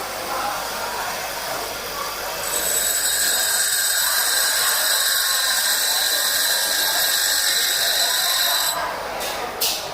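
Grinding wheel grinding a high-speed-steel lathe tool bit: a steady, high-pitched grinding whine from about two and a half seconds in until shortly before the end, with quieter grinder noise before it and a couple of clicks near the end.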